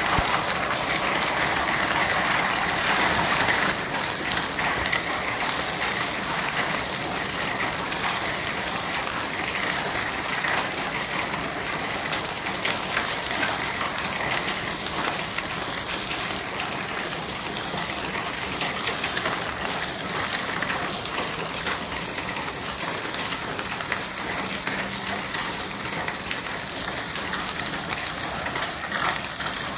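Heavy hail and rain pelting the ground: a dense, steady hiss of rain with many sharp clicks of hailstones striking. It eases slightly about four seconds in.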